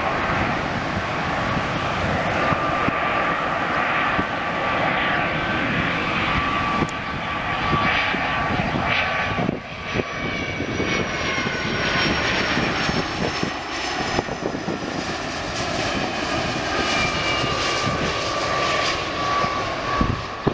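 Jet airliner on final approach, its turbofan engines giving a steady rumble and whine. In the second half a Boeing 757 passes close by with gear down, and its higher whine tones slowly fall in pitch.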